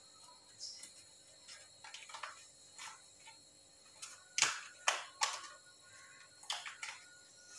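Handling of a rubber band and foam sponge: a rubber band being stretched, twisted and wound around a sponge piece, giving a string of short clicks, snaps and rubs, with the loudest few snaps a little past the middle.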